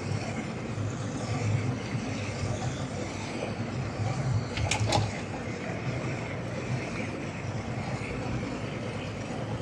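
Twin outboard motors running steadily at low speed under load, towing a 30 ft boat on a line. Two sharp clicks a little before five seconds in.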